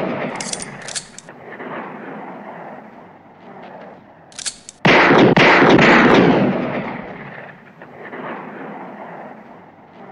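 Bren Ten pistol firing in rapid fire: a loud volley lasting about a second starts suddenly about halfway through and fades in a long echo. Before it, the echo of an earlier volley dies away, with a few short sharp ticks.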